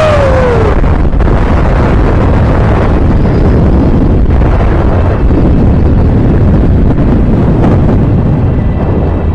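Strong wind rushing and buffeting the camera's microphone during a fast face-first zip-line ride: a loud, steady roar of air.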